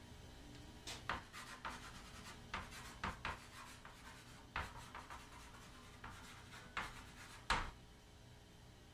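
Chalk writing on a chalkboard: a run of short, scratchy strokes, some in quick pairs, ending with one louder sharp tap near the end.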